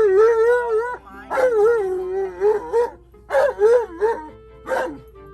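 Alaskan malamute howling and "woo-woo" vocalizing in excited bouts, its pitch wavering up and down. There are about four outbursts: two long ones, a shorter one, and a brief yelp near the end.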